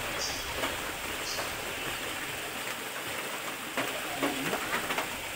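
Steady hiss of splashing water.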